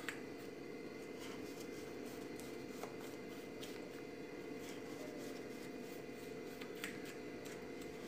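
Knife blade drawn through set coconut burfi, a faint grainy scraping, with three light clicks as the blade meets the metal plate.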